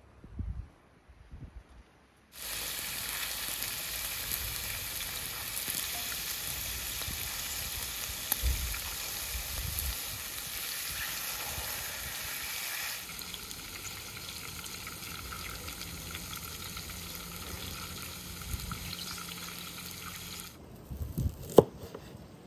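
Pieces of meat, eggplant, zucchini and mushrooms sizzling as they fry in oil on a wide iron saj pan. The hiss starts suddenly a couple of seconds in and stops near the end. Then a knife strikes a wooden cutting board a couple of times as it slices garlic.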